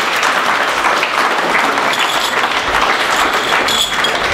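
A crowd of people applauding steadily, many hands clapping at once.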